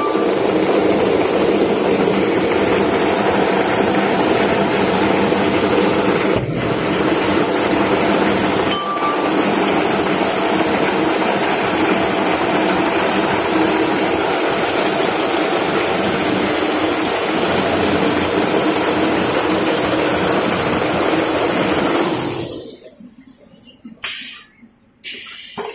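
Toilet-roll rewinding machine running, a steady loud mechanical hum and hiss from its rollers and drive. The noise drops away abruptly about 22 seconds in, leaving a few short, quieter sounds.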